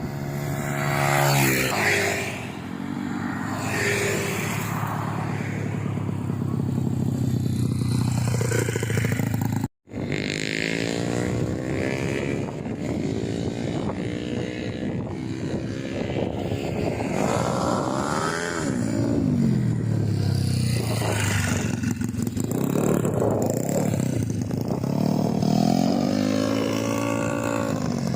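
Single-cylinder four-stroke engine of a Yamaha Mio scooter, bored up to about 200 cc, being revved up and dropped back to idle again and again while it is tuned. The sound cuts out briefly about ten seconds in.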